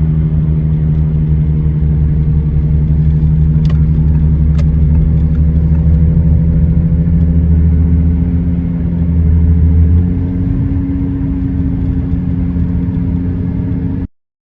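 2013 Audi A6 C7 on the move with a bad front wheel bearing, giving a steady low drone made of several hum tones; about ten seconds in, part of the hum shifts higher. The sound stops abruptly near the end.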